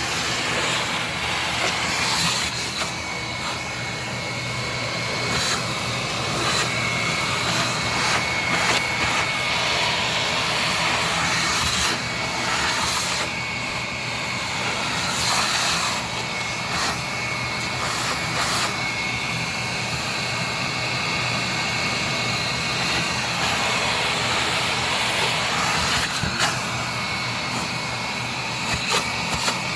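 Steady whine of an electric blower motor running without a break, with short knocks and scrapes on top now and then.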